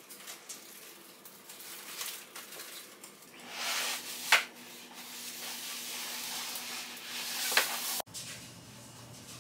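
Handling noise with rustling and two sharp knocks as a tall white flat-pack furniture panel is stood up and moved, over a low steady hum.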